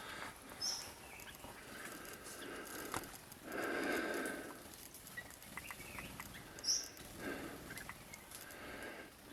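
A man's heavy breathing close to the microphone, slow breaths a few seconds apart, the loudest about four seconds in. Two short high bird chirps, near the start and about two-thirds through.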